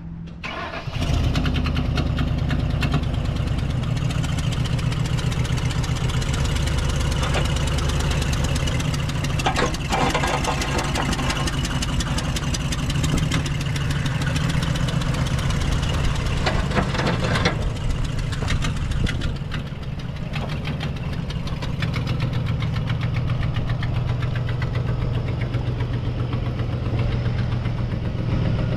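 2008 Ford F250 pickup's engine starting about a second in, then running steadily as the truck idles and is driven slowly.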